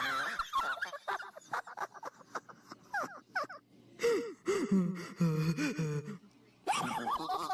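A man laughing in bursts, breaking off briefly twice.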